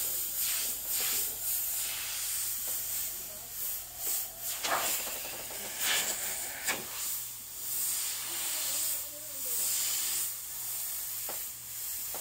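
Airbrush spraying black paint, a hiss that comes in short repeated pulses as the trigger is worked, with a few longer, louder bursts around the middle.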